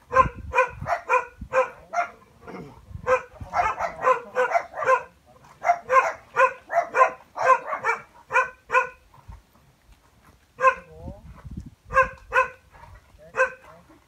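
A dog barking over and over in quick short barks, about three a second, then after a brief pause a few barks spaced further apart near the end.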